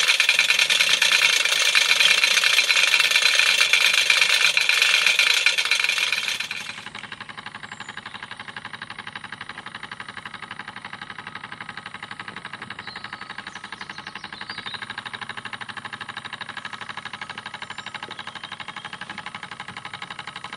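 A RETROL SE-02 model steam engine running at a steady speed, with a fast, even beat of exhaust and moving parts and a metallic rattle. About six and a half seconds in the sound drops sharply to a quieter, steady rapid ticking.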